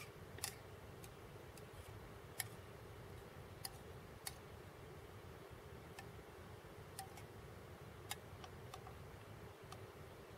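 Spoon clicking and scraping against a camp mug while eating: a dozen or so short, sharp clicks at irregular intervals over a faint steady background noise.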